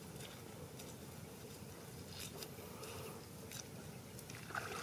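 Faint crunching and clicking of someone walking barefoot through short dry grass while carrying a small bucket, with a sharper knock near the end.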